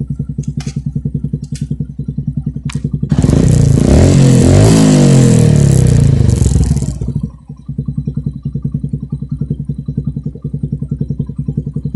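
Yamaha YTX's engine, breathing through an Akrapovic muffler with the silencer insert removed, idles with an even pulse. About three seconds in it is revved hard for about four seconds, the pitch rising and falling, then it drops back to idle.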